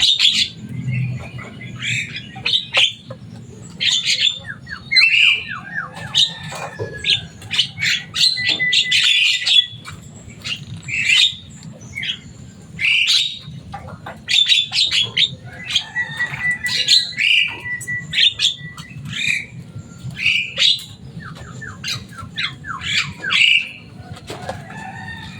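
Javan myna (jalak kebo) calling on and on with harsh squawks and clicks. Twice it breaks into a rapid run of short falling notes, and now and then it holds a steady whistled note.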